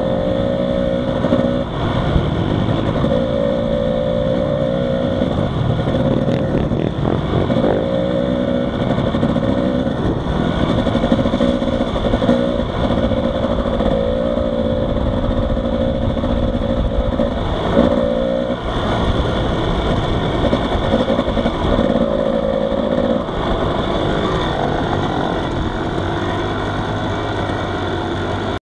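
Dirt bike engine running under way on a gravel road, its pitch rising and dropping every second or two as the throttle is rolled on and off, with wind noise over it. Over the last few seconds it settles into a lower, steadier note as the bike slows.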